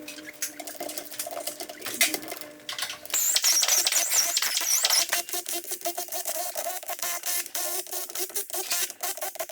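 Rapid metallic clicking of a ratchet wrench running in bolts on a truck diesel engine under assembly, with a steady faint tone beneath and a wavering high whine for a couple of seconds in the middle.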